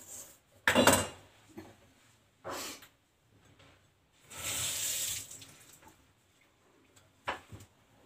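Kitchen tap running in a few short bursts, the longest about a second long, with a sharp knock near the end.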